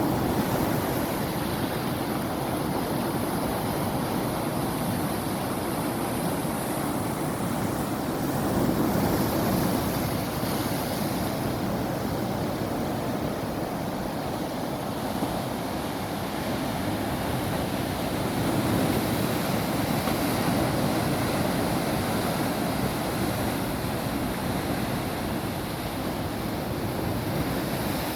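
Sea waves breaking and washing over rocks and rock pools: a continuous surf wash that swells louder about nine seconds in and again near twenty seconds.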